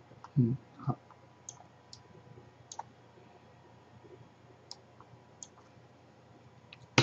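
Computer mouse and keyboard clicks: scattered short, sharp clicks a second or so apart, with a louder click at the very end. There are two short low thumps about half a second in.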